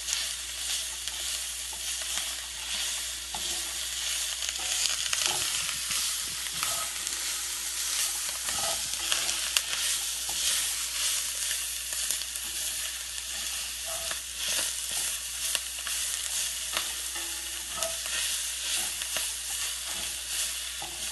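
Food frying in a frying pan: a steady sizzle with scattered sharp crackles and pops.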